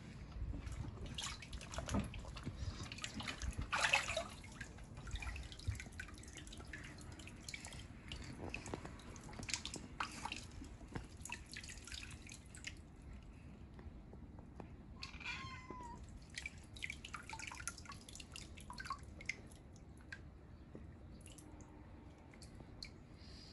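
Water splashing and dripping in a child's inflatable paddling pool, in short irregular strokes through the first half. About fifteen seconds in, a long-haired cat meows once.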